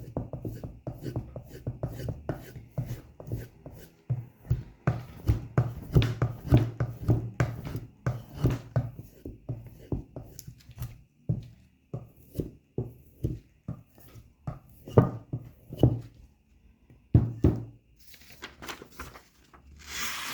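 Victorinox Hunter Pro knife blade being honed with quick repeated strokes, about two to three sharp knocks a second, working the middle of the edge where it still snags. A brief hissing scrape near the end.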